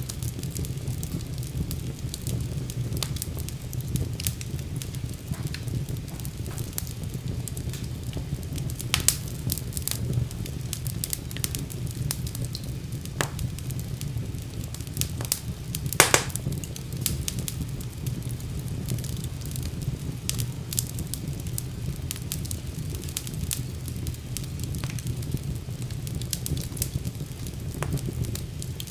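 Wood fire burning in a fireplace: a steady low rumble under a continual scatter of crackles and sharp pops, the loudest pop about halfway through.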